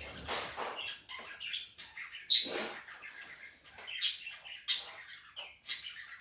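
A bird chirping in short, irregular high calls, with a louder call about two and a half seconds in.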